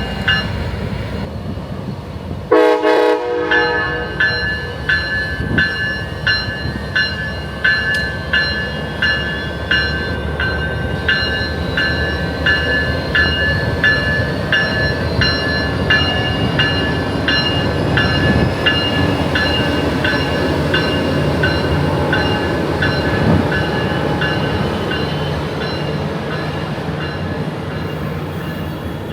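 Amtrak passenger train passing through a station. A short horn blast sounds about two and a half seconds in, then a bell rings steadily about once every two-thirds of a second over the low rumble of the train.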